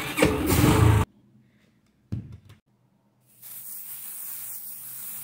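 Aerosol body spray hissing in one steady spray of about two and a half seconds, starting past the middle. Before it, a loud rumble cuts off abruptly about a second in, followed by a brief faint noise.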